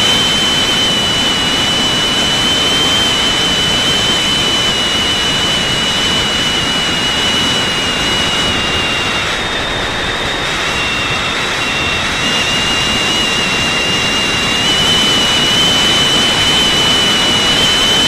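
Parrot Disco drone's electric motor and rear pusher propeller running at low cruise throttle in flight, a steady high whine over a constant rush of wind past the airframe and microphone. The whine dips and briefly fades about ten seconds in, then returns.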